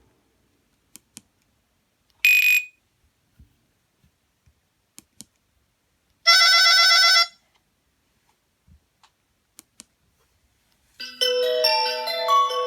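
Nokia Asha 302 phone tones: a brief single beep about two seconds in, a one-second richer tone about six seconds in, then a multi-note ringtone melody starting near the end. Faint pairs of clicks fall in the gaps between them.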